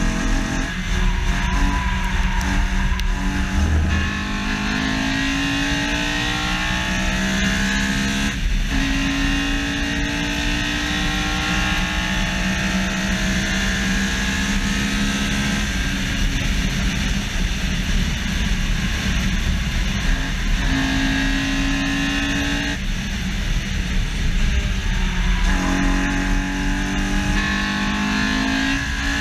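Honda S2000's F20C inline-four at full throttle, heard from a bumper-mounted camera. Its pitch climbs to high revs in one gear after another, broken by quick gear changes, and drops a few times where the driver lifts off.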